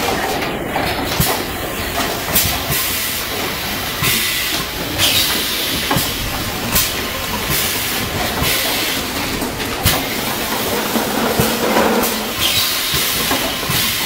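Automatic inline piston filling machine running: a steady mechanical clatter with sharp clicks, broken every few seconds by short bursts of hissing air.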